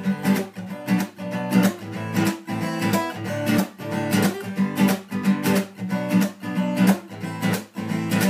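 Cutaway acoustic guitar strummed in a steady rhythm: the instrumental introduction of a song, before the vocals come in.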